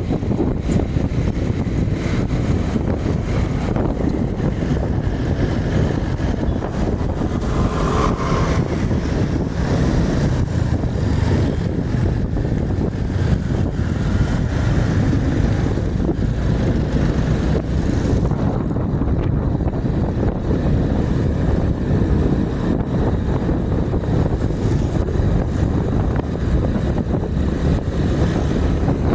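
Steady rumble of wind buffeting the microphone, mixed with vehicle engine and road noise.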